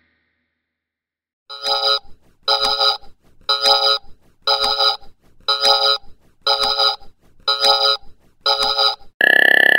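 Electronic soundtrack. After about a second and a half of silence, a trilling, ringtone-like synth tone pulses once a second, eight times. Near the end a loud falling synth glide begins.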